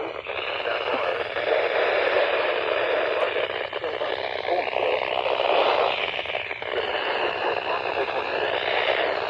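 Weather radio receiver hissing with heavy static over a National Weather Service warning broadcast, a wavering whistle of interference running through it; the broadcast voice is mostly buried in the noise.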